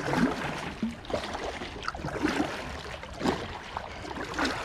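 Kayak paddling: a double-bladed paddle dipping into the water on alternate sides, with splashing and dripping off the blades.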